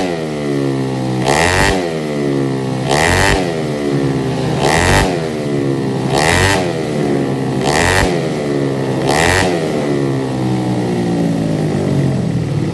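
Tuned two-stroke road-race motorcycle engine being warmed up with sharp throttle blips, six in all, about every second and a half; each rev climbs quickly to a high, screaming pitch and drops back toward idle. Near the end the revs fall away for a couple of seconds without a blip.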